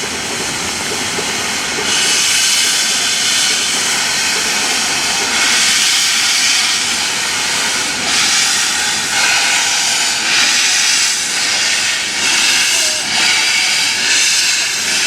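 Steam locomotive C57 1 hissing steam loudly and steadily, with surges of stronger hissing that become a slow, uneven pulse in the second half.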